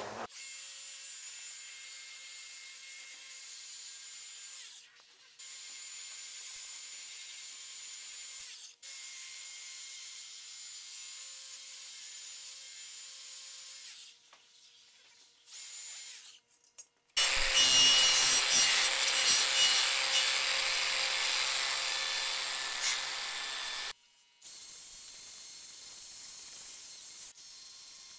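Cordless angle grinder running against plasma-cut steel, knocking the cutting dross off the edges of the letters. It starts and stops abruptly several times. About two-thirds of the way through comes a louder stretch of several seconds where the disc bites hard into the metal.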